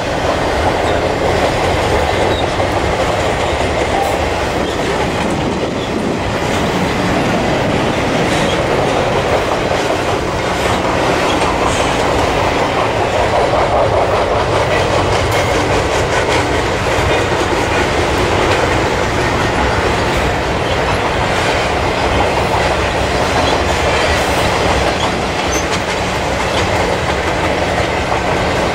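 Canadian Pacific double-stack intermodal freight train rolling past, container cars going by one after another. A continuous, steady rumble of steel wheels on the rails.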